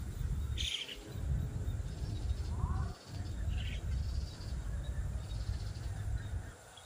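Low rumble on the microphone that comes and goes in long stretches, with a few faint bird chirps and a high, pulsing insect buzz behind it.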